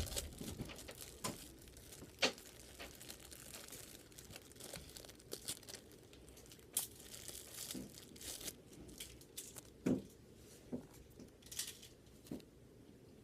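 Plastic packaging being handled and opened, crinkling and tearing faintly in irregular crackles, a few louder ones about two, seven and ten seconds in.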